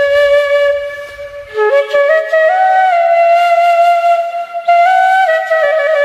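Bamboo flute (bashi) playing a slow melody of long held notes, gliding up and down between them.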